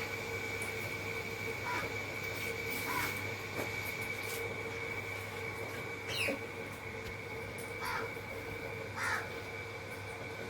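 Indian ringneck parakeet giving about five short, harsh squawks a second or two apart, one about six seconds in falling in pitch, over a steady background hum.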